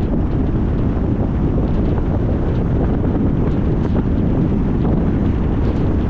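Steady wind buffeting the microphone: a constant low rumble without breaks.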